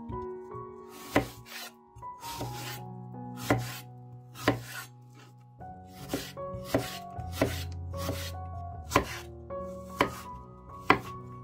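Chef's knife slicing and dicing a green apple on a bamboo cutting board. Sharp, irregular knocks of the blade hitting the board come about one or two a second, with the loudest near the end. Background music with sustained notes plays underneath.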